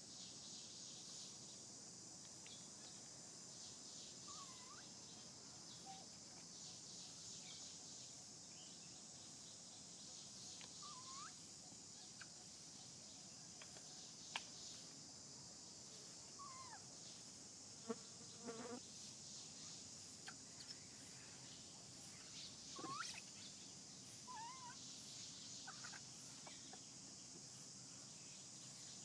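Faint, steady insect buzz, with a few short high squeaking calls that rise and fall, typical of baby macaques' coos, coming every few seconds. There are a couple of sharp clicks.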